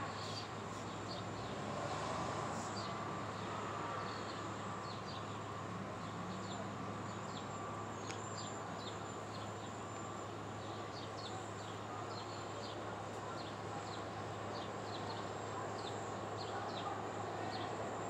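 Outdoor ambience: small birds give many short, falling, high chirps over a steady high insect buzz and a constant low hum.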